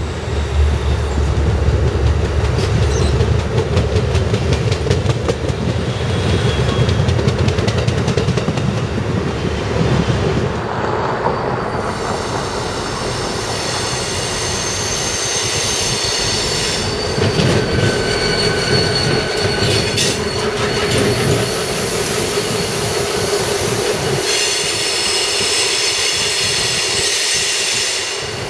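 Trains on steel rails. For the first ten seconds or so the Amtrak Pacific Surfliner passenger train rolls past with a low, heavy rumble. From about twelve seconds in, steel wheels squeal in several high, drawn-out tones as the Union Pacific local freight approaches.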